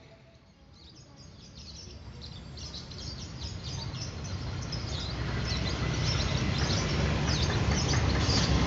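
Diesel locomotive hauling a passenger train approaching, its low rumble building steadily louder, with many short high chirps of birds above it.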